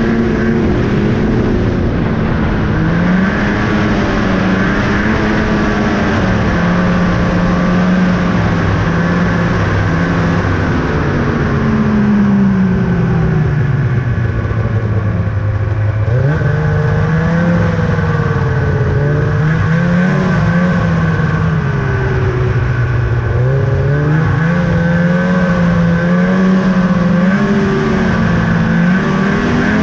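2000 Ski-Doo Summit 800 snowmobile's two-stroke twin engine running under way. Its pitch holds, falls off as it slows between about twelve and sixteen seconds in, then climbs again as the throttle opens and wavers up and down.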